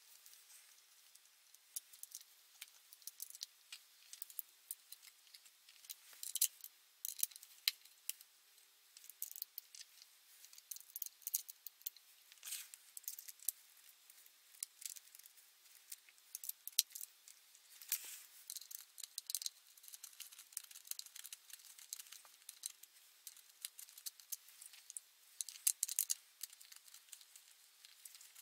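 Light, irregular clicks, taps and rattles of plastic and small metal parts as the plastic engine cover of a petrol multi-tool is handled and its screws are turned back in with a small hex key.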